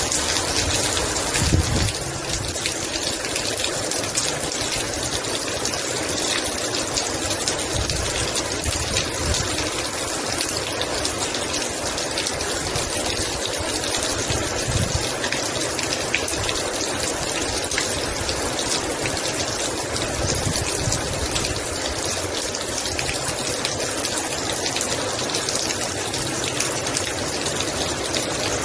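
Heavy rain falling steadily, a dense even hiss of water, with a few brief low rumbles, the strongest about a second and a half in.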